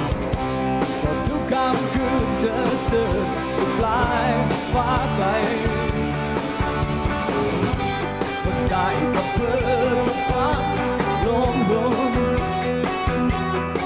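Rock band playing live: electric guitars and drums under a lead vocal, the singer's held notes wavering with vibrato about four seconds in and again later on.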